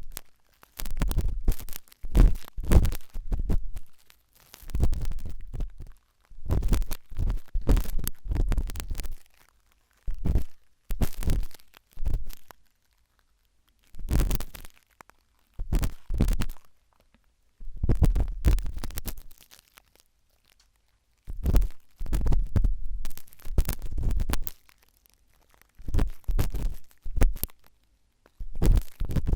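Sharp toothpick scraping and scratching in an ear, in bursts of one to two seconds made of many fine crackly clicks, with deep rumbling thumps from the contact and short silent pauses between strokes.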